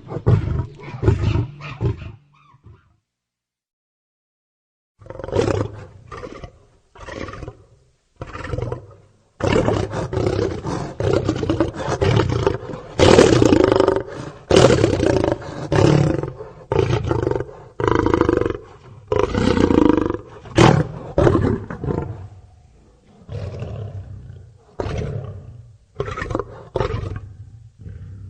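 Lion roaring: a string of deep roars and grunts, stopping for a couple of seconds early on, then a long series of calls one after another, loudest around the middle.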